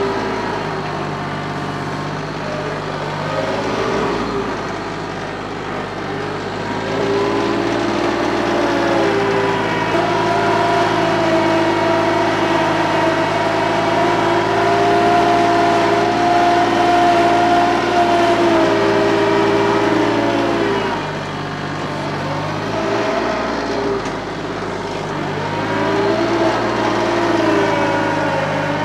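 TYM compact tractor's diesel engine running steadily, its pitch dipping and rising again a few times.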